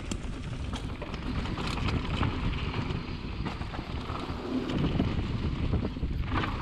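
Mountain bike riding down a dirt trail, with wind buffeting the microphone as a steady low rumble. Scattered clicks and rattles come from the tyres and bike over the ground.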